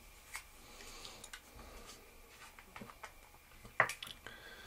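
Quiet room with a few faint, scattered clicks and taps, and one sharper click near the end.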